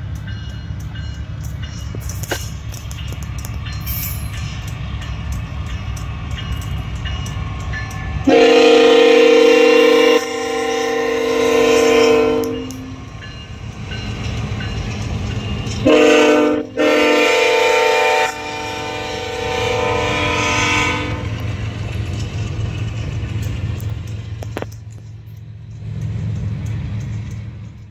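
Nathan K5HL five-chime air horn on a BNSF Tier 4 freight locomotive sounding two long blasts for the grade crossing, a loud steady chord, over a low rumble.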